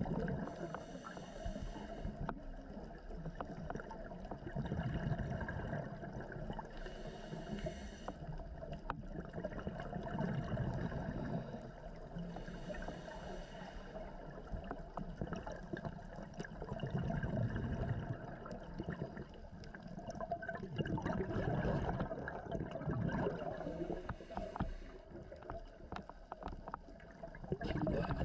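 Scuba diver breathing through a regulator underwater: a hissing inhale every several seconds, four in all, each followed by a low rumble of exhaled bubbles.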